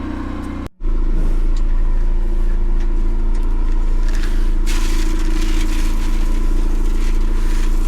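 A vehicle's engine running steadily at idle, with a brief break less than a second in, then running on louder; a short rustling noise about four seconds in.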